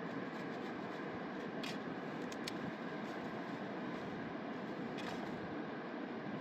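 Steady rush of a fast mountain river, an even hiss with no rise or fall, with a few faint clicks over it.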